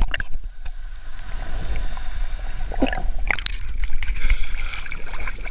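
Water moving around a handheld camera: a low underwater rumble with muffled knocks and clicks of the camera housing. The camera then breaks the surface, with sloshing and splashing about three seconds in.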